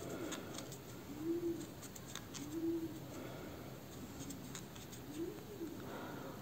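Faint clicks and rustling of a 2 mm crochet hook working single-crochet stitches in cotton-blend yarn. A few soft, low, rising-and-falling tones sound now and then in the background.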